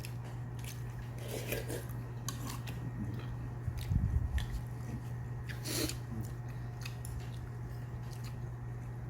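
Someone chewing food close to the microphone, with scattered small clicks, over a steady low hum.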